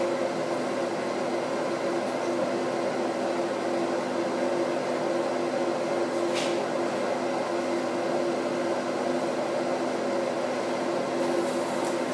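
Steady droning hum of a running kitchen appliance motor, holding one even pitch throughout, with a brief faint sound about six seconds in.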